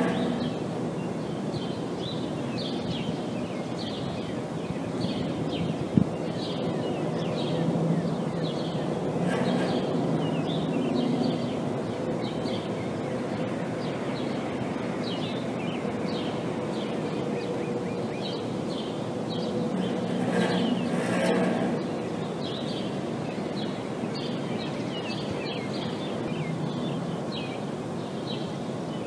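A refrigeration unit runs with a steady hum, and there is one sharp bang about six seconds in, the kind of impulsive noise the refrigerated containers give off. Many short bird chirps sound over the hum.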